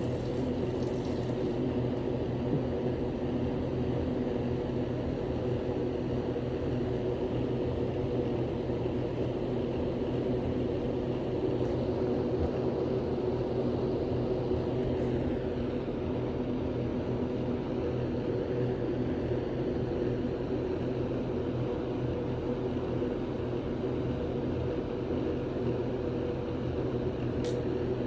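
A steady, even mechanical drone made of several fixed low hum tones over a noisy bed, with no separate bursts or sounds standing out.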